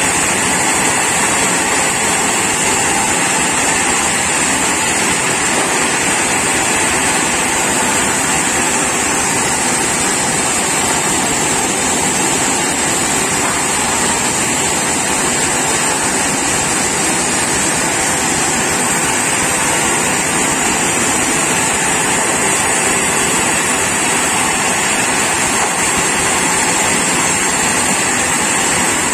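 Sawmill machinery running with a loud, even noise that does not change.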